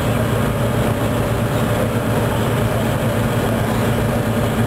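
Tugboat diesel engine running steadily, a low even hum.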